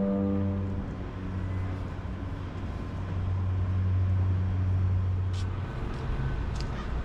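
Music fades out within the first second, leaving outdoor city ambience: a steady low engine hum of road traffic over general street noise, with the hum changing about six seconds in.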